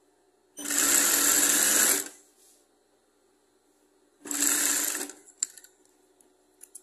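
Industrial sewing machine stitching a strip of viscose fabric in two short runs, about a second and a half and then about a second, with a few light clicks near the end.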